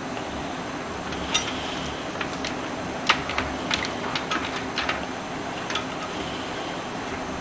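Small plastic clicks and taps as cable connectors are handled and plugged into a computer motherboard inside the case. They come irregularly, a dozen or so, the loudest about three seconds in, over a steady hiss.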